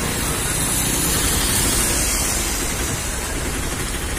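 Heavy rain pouring down on a wet road, a dense steady hiss, with the low rumble of vehicles driving through the rain underneath.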